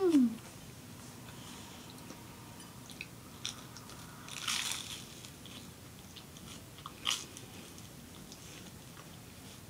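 Toast being bitten and chewed: a few crisp crunches, the longest about halfway through, between quiet stretches. A short voice sliding down in pitch opens it and is the loudest sound.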